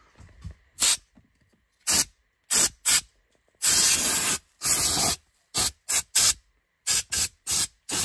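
Can of compressed air sprayed in about a dozen short hissing blasts, two of them longer, near the middle, blowing dust out of a car's center console.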